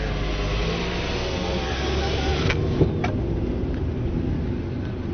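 Car running, a steady engine and road hum, with two sharp clicks about two and a half and three seconds in.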